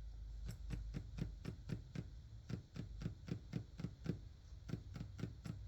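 Printer working through its setup: a rapid, regular clicking, about four to five clicks a second, starting about half a second in, over a low hum.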